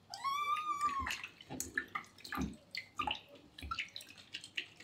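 A kitten gives one drawn-out meow of about a second that rises and falls, complaining at being bathed. Short splashes and drips of water in the sink follow as it is washed.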